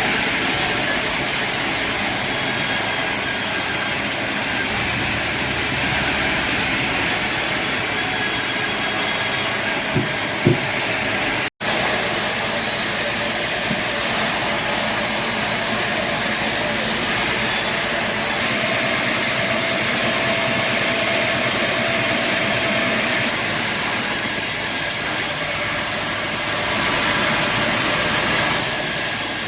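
Sawmill machinery running with a steady, loud mechanical din, broken by a momentary cut about a third of the way in.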